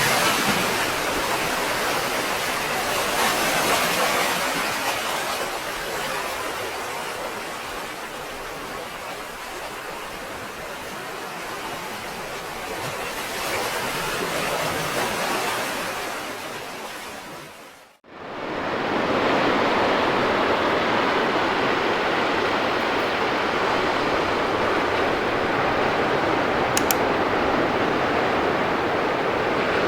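Ocean surf rushing and washing, swelling and easing over several seconds. About two-thirds of the way through it cuts out for a moment and comes back as a steadier, duller wash of surf.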